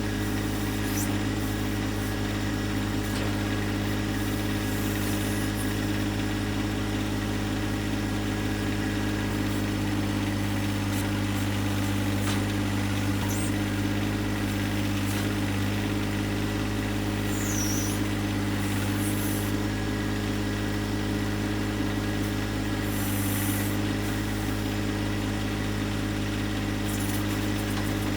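John Deere 1025R compact tractor's three-cylinder diesel engine running at a steady speed.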